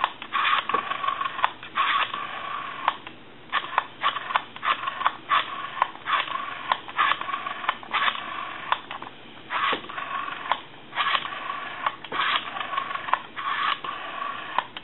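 Rotary dial of a Western Electric 202 telephone being wound round and let spring back again and again, clicking and whirring as it runs down, with a few short pauses. Its return action is being tested after repair of its spring.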